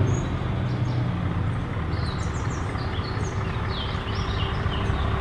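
Heavy truck engine running steadily with a deep rumble, birds chirping faintly in the background.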